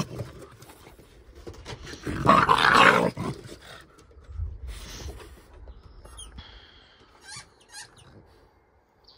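Dogs play-fighting: a loud burst of growling about two seconds in, lasting just over a second, then quieter scuffling.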